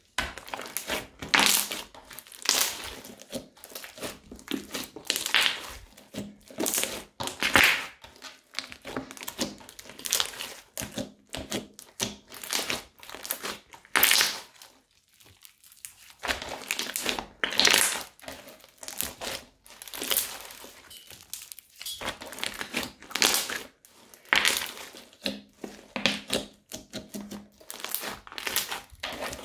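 Thick crunchy slime being squeezed, pressed flat and poked by hand, crunching in irregular bursts about once a second, with a short pause about halfway through.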